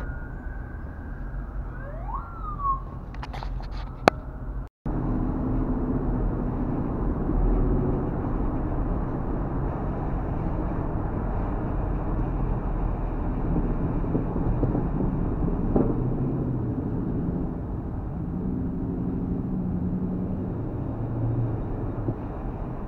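Car interior noise: the steady low rumble of an engine and tyres while cruising, with the engine note rising and falling now and then. In the first few seconds there is a steady whistling tone, a short rising siren-like whoop and a sharp click.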